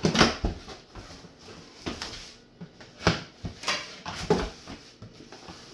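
Cardboard box and packaging being handled and unpacked: a series of knocks, thuds and rustles.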